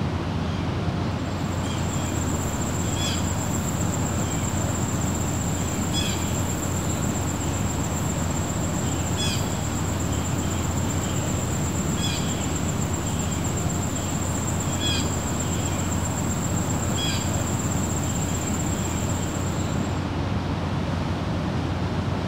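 Outdoor ambience of steady rumbling background noise. A short bird chirp sounds about every three seconds, over a continuous high-pitched whine that starts about a second in and stops near the end.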